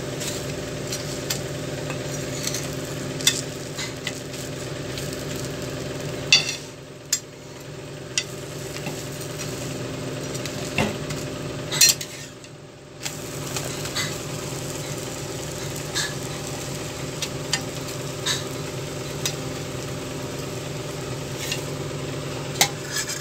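A wheat rava dosa sizzling steadily in oil on a hot dosa tawa, with sharp clicks and scrapes of a steel spatula against the pan as it is lifted and folded. A steady low hum runs underneath.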